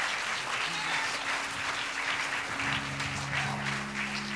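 Church congregation applauding, a hand of praise. About two and a half seconds in, sustained low chords from an instrument come in beneath the clapping.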